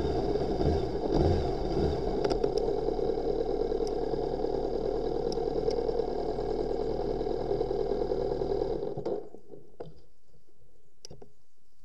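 Motorcycle engine running steadily, then cutting off about nine seconds in, followed by a few sharp clicks.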